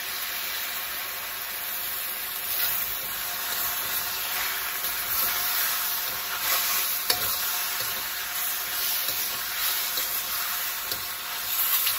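Fresh rice noodles sizzling in a hot wok while a metal spatula stirs and scrapes them, with scattered clicks of the spatula against the wok.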